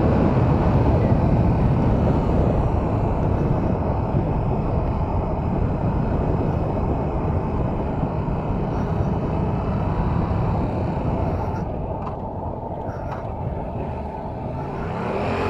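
Heavy wind rush over the microphone with the 2022 Yamaha R7's 689 cc parallel-twin engine running steadily beneath it at expressway speed. The noise eases off a little about twelve seconds in, then the engine note starts rising near the end as the bike accelerates.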